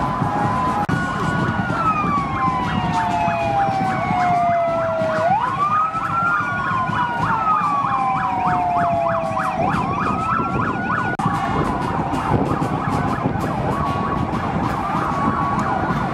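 Emergency vehicle siren wailing in slow sweeps, falling over a few seconds and rising again, twice, with a faster pulsing siren tone alongside. It stops about eleven seconds in, over a steady background din.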